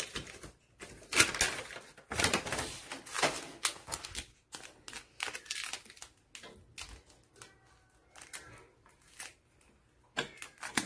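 Crinkling, rustling and clicking of a plastic IV fluid bag being handled as subcutaneous fluids are readied: an irregular run of crackles, loudest in the first few seconds.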